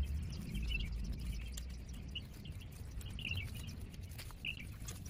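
Garden rake scraping through dry leaf mulch to rough up its surface, with small birds chirping now and then. A low rumble fades over the first couple of seconds.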